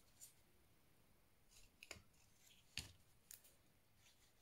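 Faint clicks and rustles of cardstock being handled as its glue tabs are pressed together. There are a few short ticks, the sharpest near three seconds in.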